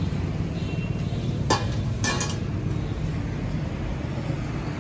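Steady low hum with handling noise on top: a sharp click about a second and a half in, then a short clattering rattle, as a formed door-frame cover strip is handled against the frame.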